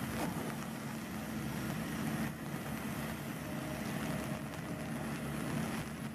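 Diesel engine of an amphibious pontoon-track excavator running steadily, a constant hum.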